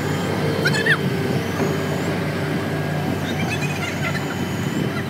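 An engine running steadily, with short bird chirps just under a second in and again near four seconds.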